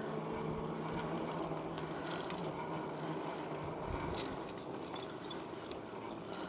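Bicycle ride on a paved road: steady rolling and wind noise with a low hum, and a brief high-pitched squeal about five seconds in.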